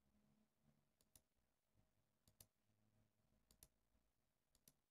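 Faint computer mouse clicks: four press-and-release double clicks, about one every second and a quarter.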